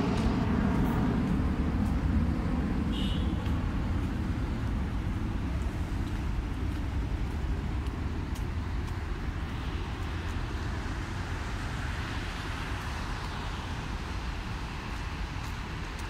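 Steady low rumble of road traffic, slowly getting quieter, with a passing engine's hum dying away in the first second.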